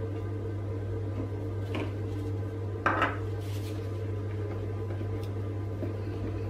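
Spatula stirring fragrance into cold-process soap batter in a plastic jug, knocking against the jug's side, once just before two seconds in and once more sharply about three seconds in. A steady low hum sounds underneath.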